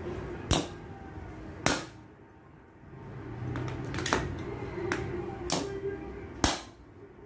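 Hammer striking a Tehhi ST18 manual nail tacker, driving a concrete nail into a concrete block: five sharp separate knocks, unevenly spaced, with a few lighter taps between them.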